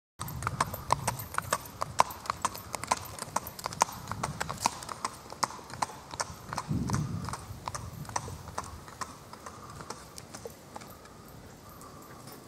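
A horse's hooves striking asphalt in quick, even hoofbeats, about four a second, as it is ridden at a brisk gait. The hoofbeats grow fainter and die away near the end as the horse moves off the pavement onto grass.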